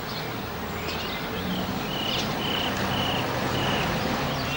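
Small birds chirping, with a run of four short even notes in the middle, over the low hum of a car engine that grows louder and then eases.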